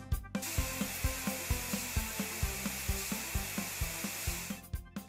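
A steady steam hiss from a cartoon steam locomotive, starting just after the opening and cutting off about four and a half seconds in. Under it, background music plays with a steady beat.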